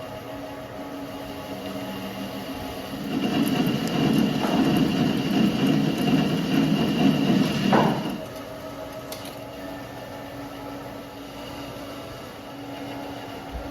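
CNC lathe running a program to turn a steel cannon barrel, with a steady machine hum. About three seconds in, the cutting tool bites into the steel and a louder, rough cutting noise runs for about five seconds before dropping back to the hum.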